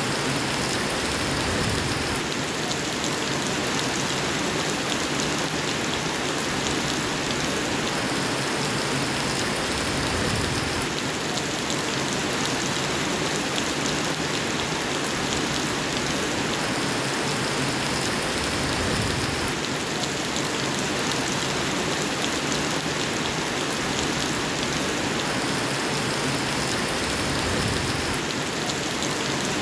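Steady rain falling, a dense even hiss flecked with fine drop patter. Its texture shifts slightly every eight or nine seconds, like a repeating loop.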